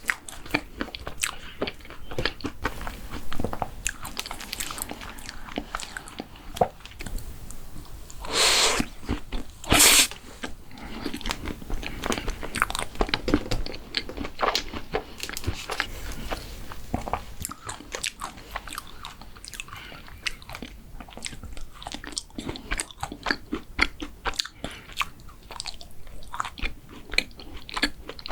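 Close-miked eating of mint chocolate desserts: crunchy bites and steady chewing, with many small sharp crunches. About a third of the way in come two louder, longer noisy bursts.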